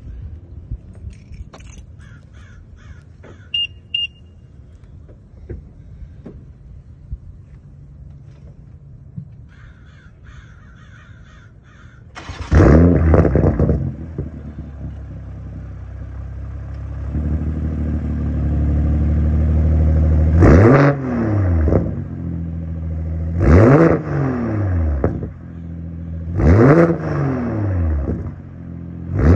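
BMW M240i's B58 3.0-litre turbocharged inline-six, its exhaust run with a muffler delete and no resonators, starting up about twelve seconds in with a loud flare. It then settles into a steady idle. Near the end it is revved in four short blips, each rising and falling back to idle.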